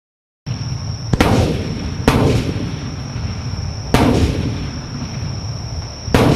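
Aerial firework shells bursting: four sharp booms spaced one to two seconds apart, each trailing off in a long echoing rumble, with a steady high-pitched whine underneath.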